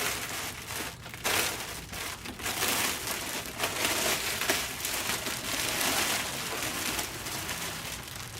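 Packing material being handled, crinkling and rustling in irregular bursts as items are unwrapped from a box.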